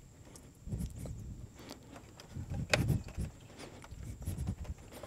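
Faint handling noises of spring clamp pliers being worked onto a radiator hose spring clamp: soft scattered knocks and rubbing of tool and hands against the hose and nearby parts, with one sharper metallic click about midway.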